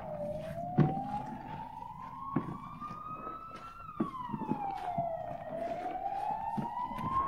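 A wailing siren rising and falling slowly in pitch, with sharp pops and crackles from fluffy shaving-foam slime being stretched by hand. The loudest pop comes about a second in.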